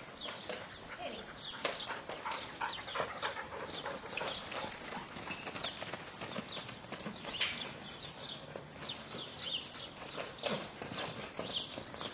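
Hoofbeats of a mare and a Pony of the Americas foal moving about on a sandy pen floor, an irregular patter of steps with one sharp knock about seven seconds in.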